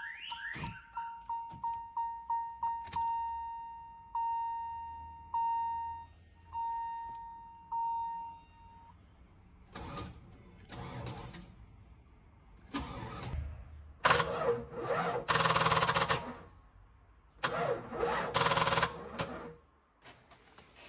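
A 1993 Cadillac's warning chime beeping over and over, then four cranking attempts on its engine, the last two about two seconds each, without it firing. The engine fails to start because the battery is weak.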